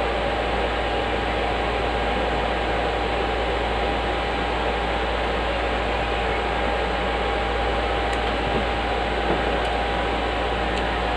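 Steady whir and hiss of an electric fan or air conditioner running, with a faint steady high hum; a few light clicks from handling the card near the end.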